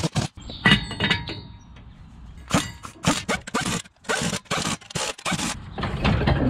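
Pneumatic impact wrench hammering lug nuts onto a truck wheel in several short bursts, with metallic clinks and a brief ring from the nut and rim.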